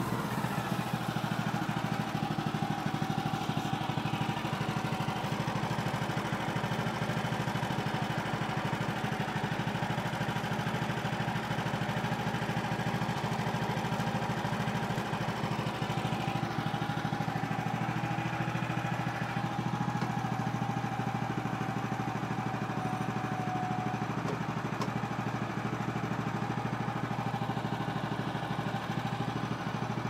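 Woodland Mills HM130 Max bandsaw sawmill running steadily, its engine driving the band blade through a Douglas fir cut.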